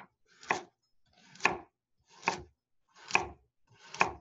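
Chef's knife slicing through a raw carrot on a wooden cutting board, five even strokes about one a second, each ending in a sharp knock of the blade on the board.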